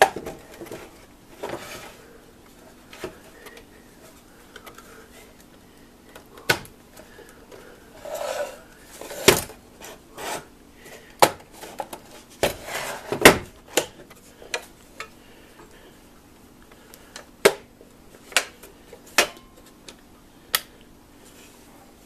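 Plastic housing of a Singer Graflex Study Mate II filmstrip viewer being handled as its cover is fitted back on: scattered sharp clicks and knocks, with a few denser bursts of rattling in the middle.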